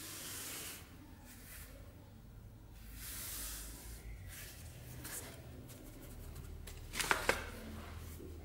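Soft rubbing and brushing as hands turn a Caucasian dagger in its scabbard, then about seven seconds in the steel blade is drawn out of the scabbard with a short sliding scrape and a few quick clicks.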